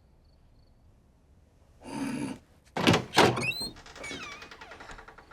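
After a near-silent pause, a short rustling burst, then two sharp thumps close together, followed by a fainter squeaky sound that wavers in pitch.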